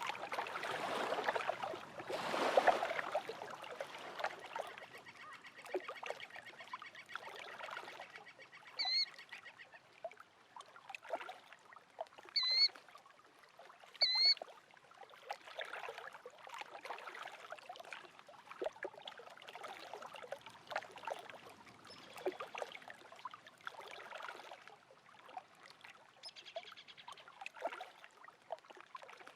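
Small waves lapping and splashing at a lake shore, an uneven wash of water with a louder splash about two seconds in. A bird gives three short, rising calls between about nine and fourteen seconds in.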